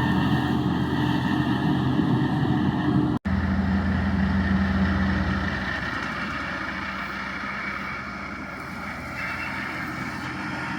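Farm tractor engine running steadily. There is a sudden short break about three seconds in, then engine sound again that fades to a quieter level over the next few seconds.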